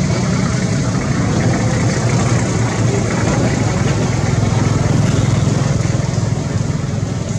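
A motor vehicle engine idling steadily, with an even hiss over it.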